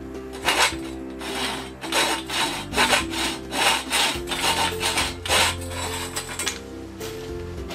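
A hacksaw blade cutting through soft copper tubing by hand, in steady back-and-forth strokes about two a second that stop about six and a half seconds in. Background music plays underneath.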